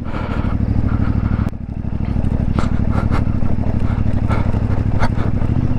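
CFMoto 450MT's parallel-twin engine running steadily as the motorcycle rides along, with a brief drop in engine sound about one and a half seconds in and several sharp clicks and knocks scattered through.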